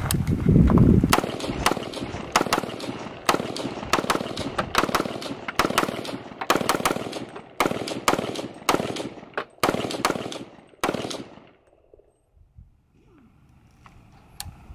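Q Sugar Weasel 300 Blackout short-barrelled rifle fired unsuppressed in a long string of shots, about two or three a second, for some ten seconds before stopping.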